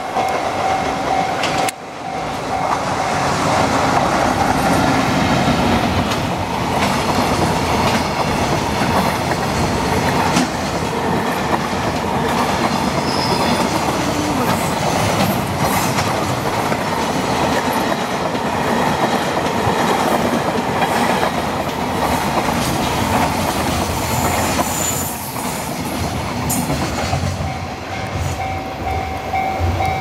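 Long freight train of container wagons rolling past a level crossing, its wheels clattering over the rail joints in a dense, continuous rumble. The crossing's electronic warning bell rings over it at the start, is drowned out while the wagons pass, and rings clearly again near the end as the last wagon clears.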